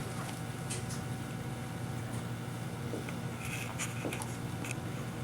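Steady low machine hum in a small room, with a few faint clicks and rustles.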